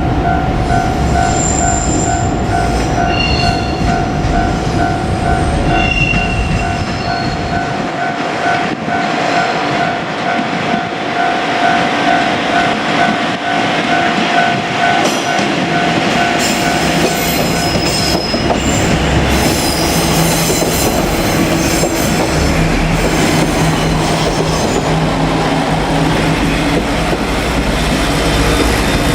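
Japanese level-crossing alarm ringing its pulsing warning tone for the first half or so, then dying away, while a two-car JR Kyushu KiHa 47 diesel railcar set passes over the crossing. The railcars' diesel engines drone and their wheels clatter over the rail joints, building through the middle and carrying on after the alarm stops.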